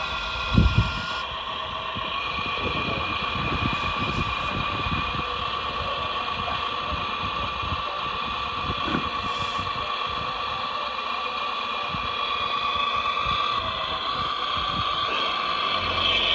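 Hydraulic pump and drive of a radio-controlled Volvo tracked excavator, a model, running with a steady high whine, with a short thump about half a second in.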